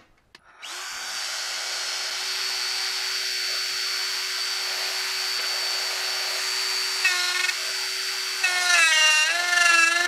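Hercules quarter-inch electric die grinder, mounted as a lathe tool post grinder, starting up about half a second in and running with a steady high whine. Near the end its grinding wheel is touching the point of a dead center, adding a wavering squeal as the motor's pitch dips slightly under the load.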